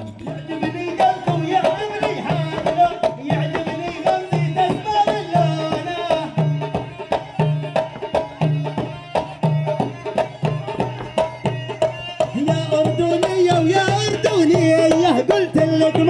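Arabic folk dance music for a dabke line dance: a drum beats steadily about twice a second under a melody line that rises and wavers more in the last few seconds.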